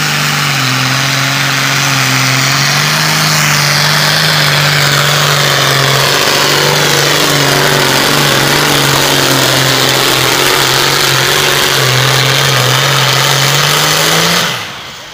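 Super Farm class pulling tractor's turbocharged diesel engine running hard at high revs while pulling the sled, loud and nearly steady in pitch with a hissing top. It stops abruptly near the end.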